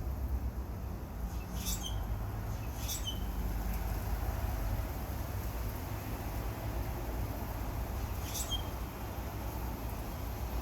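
Three short, sharp bird calls, two about a second apart and a third several seconds later, over a steady low rumble.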